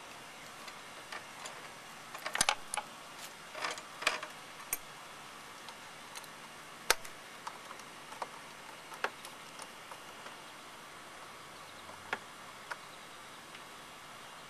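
Metal hand tools clicking and clinking on a lawnmower carburetor as its mounting bolts are tightened with a ratcheting wrench and socket extension. The clicks come irregularly, bunched together a couple of seconds in, then single sharp clicks spaced a second or more apart.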